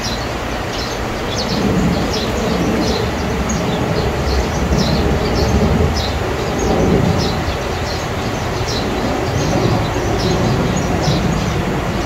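Summer cicadas calling in the orchard, a pulsing high song repeating about twice a second, over a loud steady low rumble.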